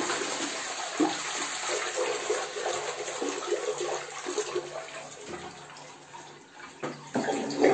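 Toilet flushing: water rushing through the bowl, loudest at the start and slowly tapering off, with a brief swell again near the end.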